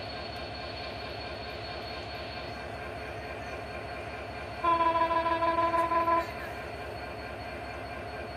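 Train horn sounding one long steady blast of about a second and a half, about halfway through, over a steady background noise.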